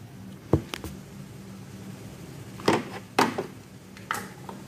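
Scattered knocks and clunks of things being handled on a kitchen counter: three quick ones about half a second in, then single ones around the middle and near the end. A steady low hum runs underneath.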